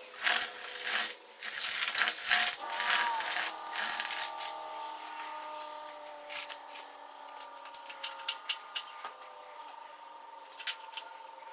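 Metal parts of a milling machine being handled and shifted into position: a dense run of clanks, rattles and scraping for the first few seconds, then scattered clicks over a fainter steady hum.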